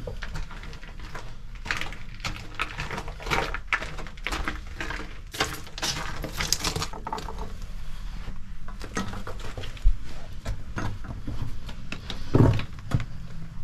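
Irregular scraping, shuffling and knocking of movement over brick and loose rubble inside a small brick oven chamber, with a low rumble underneath. A couple of louder knocks come near the end.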